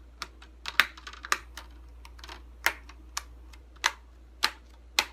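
Plastic display bezel of an HP G62 laptop being pressed onto the lid, its clips snapping into place one after another: about a dozen sharp plastic clicks at an uneven pace of roughly two a second.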